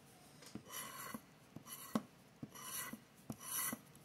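A scratcher tool scraping the coating off a scratch-off lottery ticket in short rasping strokes, about one a second, with light ticks between them.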